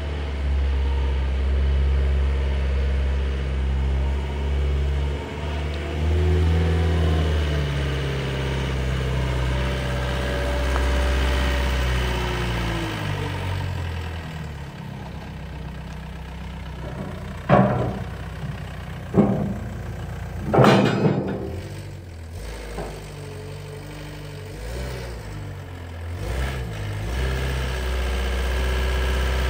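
Liebherr L508 Compact wheel loader's diesel engine running, its pitch rising and falling as the machine moves and works. Partway through come three sharp metal clunks as the bucket is set down and released from the quick coupler, and then the engine runs at a steady idle.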